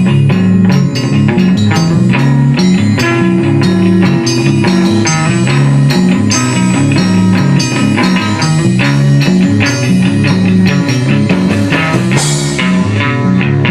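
Live instrumental rock music: electric guitar, bass and drum kit playing together at full volume, in a dense psychedelic style with steady drum hits.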